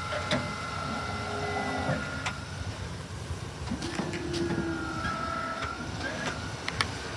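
Snow plow's electric hydraulic pump motor whining, stopping about two seconds in and running again briefly later, with a few sharp clicks, over the low rumble of the truck's idling engine.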